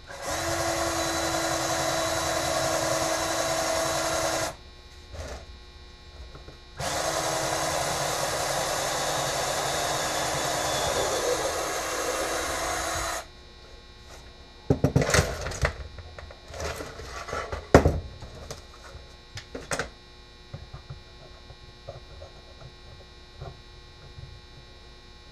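Electric drill running twice for several seconds each, with a steady tone, boring holes in a wooden board. Then a few seconds of knocks and clatter from handling tools and wood.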